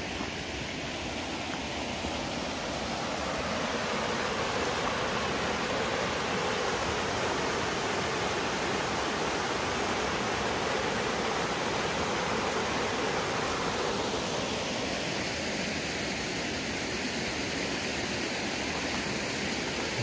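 Small forest stream rushing over rocks in a low cascade: a steady rush of water, a little fuller for a stretch in the middle.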